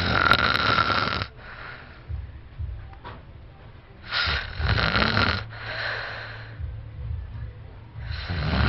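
A man snoring loudly in his sleep: a loud snore about every four seconds, three in all, each followed by a shorter, softer one.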